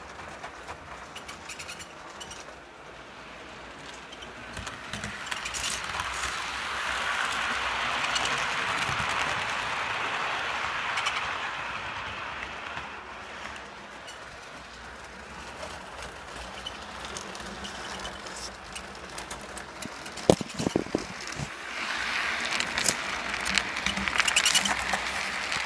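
Model train of a CN GP9m locomotive and passenger coaches rolling on the track, its wheels rattling and clicking; the sound swells and fades as the train passes close, then grows again near the end as it comes right by. A few sharp knocks about twenty seconds in.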